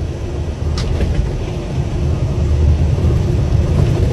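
Jet airliner engines rumbling low and steady close to the runway, growing louder in the second half, with a faint steady hum above the rumble.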